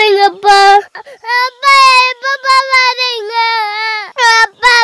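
A child's high voice singing: two short phrases, then a long held note of nearly three seconds.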